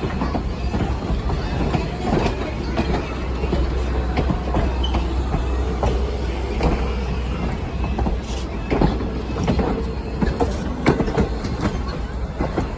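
Train rolling along the track with a steady low rumble, its wheels making irregular clicks and clanks over the rail joints.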